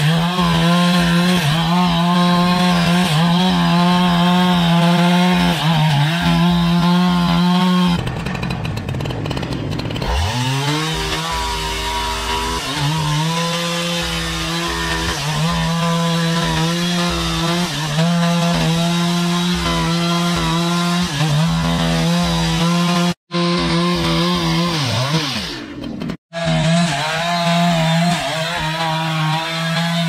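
Chainsaw engine running at high speed under load, cutting through a large log. Its note drops out briefly about a third of the way in and then climbs back up to speed, and it breaks off abruptly twice near the end.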